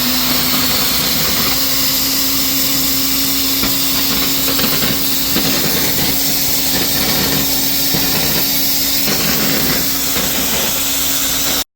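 CNC oxy-fuel cutting torch burning through 40 mm steel plate: a steady loud hiss of the cutting oxygen jet with irregular crackling from the cut and a steady low hum underneath. It cuts off suddenly near the end.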